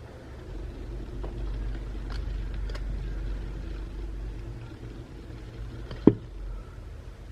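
Faint clicks of small parts and tools being handled, with one sharper click about six seconds in, over a low steady hum; consistent with a phone's fingerprint-sensor flex connector being fitted.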